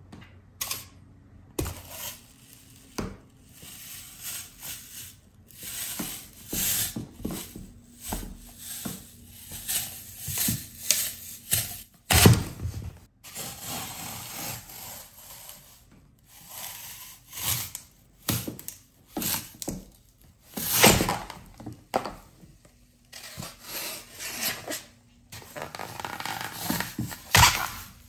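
Dry floral foam bricks crunching and crumbling under high-heeled shoes, in irregular crackling crunches as the heel and sole press into the foam and break it apart. The crunches come unevenly, with the loudest about twelve seconds in and again near twenty-one seconds.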